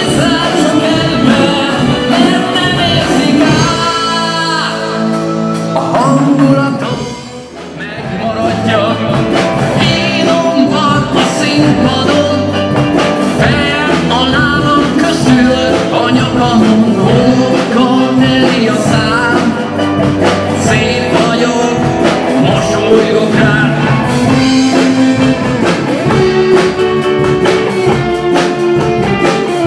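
Rock band playing live, with drums, electric guitar, bass guitar and keyboards, and singing. The music drops away briefly about seven seconds in.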